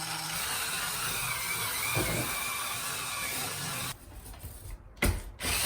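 Small electric motor of a handheld bathroom cleaning brush running with a steady whir and faint whine, cutting out about four seconds in, followed by a short knock about a second later.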